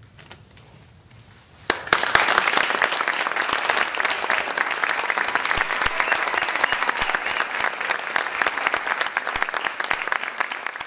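Theatre audience applauding: after a quiet moment, dense clapping breaks out suddenly about two seconds in and carries on steadily.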